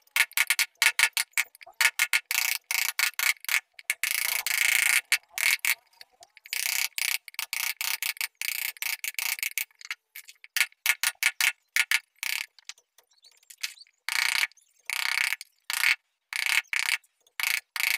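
Hand wood carving: a wooden block used as a mallet tapping a carving chisel into a wooden door panel, in runs of quick sharp taps, about five a second. Between the runs come stretches of a steady high hiss lasting a second or two.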